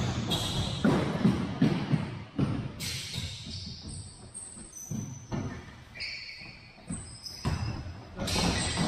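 Indoor soccer ball being kicked and thudding on a hardwood gym floor, with short sneaker squeaks, echoing in a large gym. The knocks come thick at first, thin out for a few seconds in the middle, and pick up again near the end.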